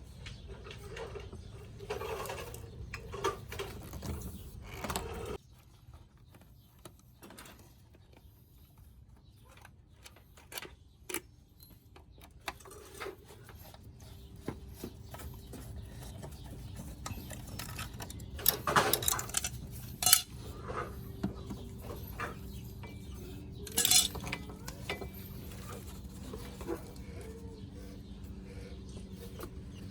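Scattered metallic clinks and knocks of hardware and tools being handled, with the sharpest cluster just past halfway and another a few seconds later. A faint steady hum sits under the second half.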